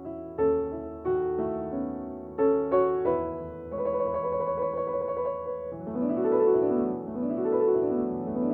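Background piano music: separate struck notes and chords, then from about six seconds in, quick runs of notes rising and falling.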